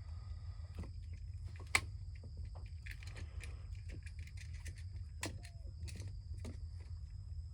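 Scattered sharp clicks and taps of hand tools and wire ends against an electrical outlet's terminals while it is being wired up, the loudest about two seconds in, over a steady low hum.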